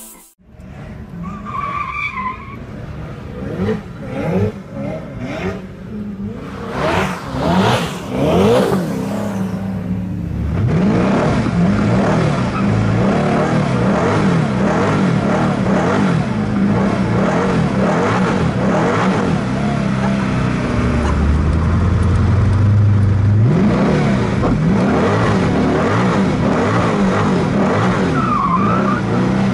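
Koenigsegg One:1's twin-turbo V8 revving repeatedly, then running hard under load with tyres squealing and skidding as the car does donuts, heard from inside the cabin.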